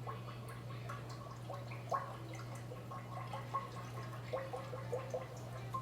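Liquid bubbling in a pot, with irregular small pops and blips, more of them towards the end, over a steady low hum.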